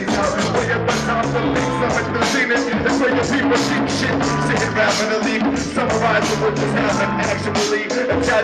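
Live band playing a hip hop track: drums with cymbal hits on a steady beat, a low bass line and electric guitar.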